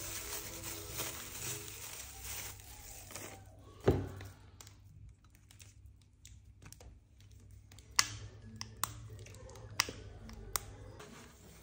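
Thin plastic wrapping crinkling as a small black bottle pour spout is unwrapped, then one sharp knock about four seconds in. A few short sharp clicks follow as the spout is handled and pushed into the neck of an empty glass bottle.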